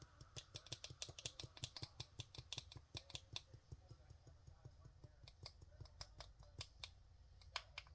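Small glass jar of pumpkin pie spice being shaken and tapped to get the spice out: a rapid run of faint ticks and clicks, several a second, thinning out a little after halfway.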